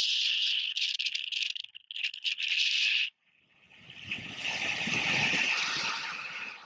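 Wind noise from the airflow of paraglider flight buffeting an action camera's microphone. It comes first as a hissing, choppy rush and cuts out briefly about three seconds in. It then returns as a fuller, deeper rush that swells and fades toward the end.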